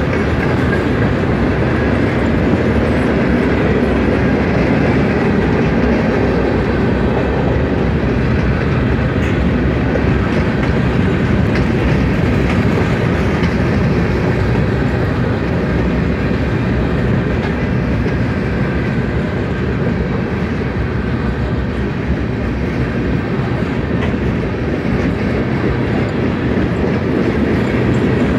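Cars of a mixed freight train rolling steadily past, a continuous rumble with wheels clicking over the rail joints.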